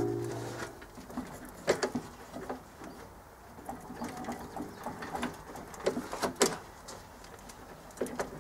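Steel parts of a homemade snowplow clanking and scraping as the plow's mounting piece is worked into its frame: scattered sharp metal knocks, with a ringing tone from a strike just before fading out at the start.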